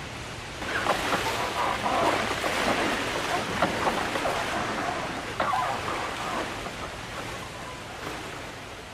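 River water sloshing and splashing around boats crossing a river. It swells up a little under a second in, with many small splashes, and fades gradually toward the end.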